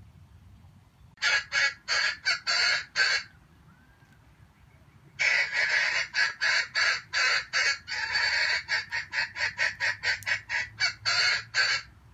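Junglefowl cackling: two runs of rapid, harsh clucks, a short run about a second in and a longer one from about five seconds in until near the end.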